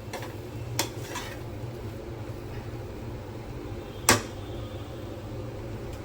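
A cooking spoon knocking against a pressure pan while stirring rice and spices: a couple of light knocks about a second in and a louder one about four seconds in, over a steady low hum.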